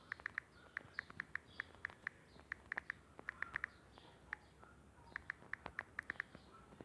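Light, quick taps on a smartphone, dozens of short clicks coming irregularly in quick runs of two to four.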